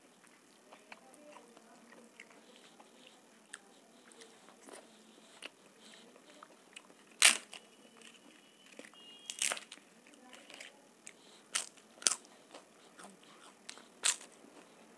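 A crisp papad snapped apart by hand and bitten, giving five sharp, brittle cracks from about seven seconds in, the first the loudest. Before them come faint soft clicks of fingers mixing dal and rice on a steel plate.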